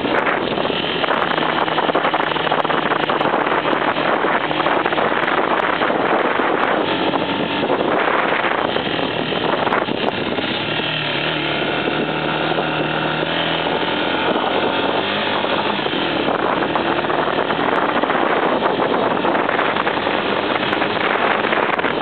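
Off-road motorcycle engine running under load on an uphill ride, mixed with heavy wind buffeting on the handlebar-mounted microphone.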